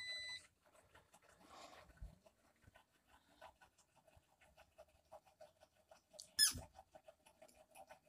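Eufy robot vacuum gives a short electronic beep as it takes the return-to-dock command, then runs faintly, with a low hum and light ticks, as it drives back to its charging base. About six seconds in there is a brief, high rising squeak.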